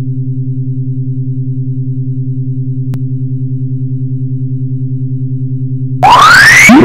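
Synthesized alarm-like sound from a motion-sensing Max/MSP installation: a low, rapidly pulsing electronic drone, then near the end an abrupt jump to much louder overlapping rising sweeps. The sweeps are the alarm changing as a person moves in the sensor zone.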